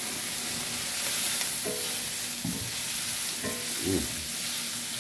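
Sliced bell peppers and onions sizzling in a hot cast iron skillet, freshly splashed with liquid smoke, as a spatula stirs them around the pan. The sizzle is a steady hiss.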